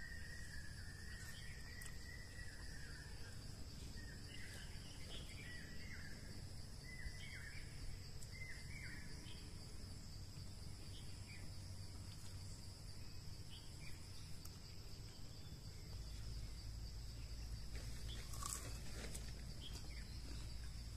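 Outdoor ambience: a steady high-pitched insect drone, with a run of short bird chirps in the first half. A low rumble grows louder about three-quarters of the way through.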